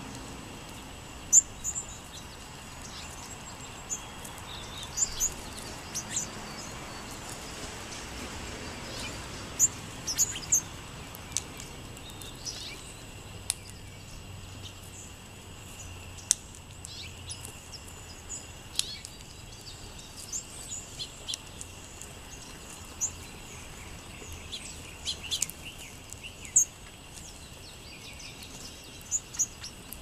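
Short, high chirps and call notes from a flock of sparrows, scattered every second or two over a steady background hiss.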